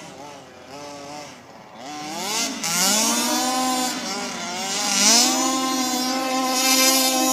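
Small engine of a rebuilt Baja revving: low and quieter at first, rising in pitch from about two seconds in, dipping briefly, then held steady at high revs from about five seconds in.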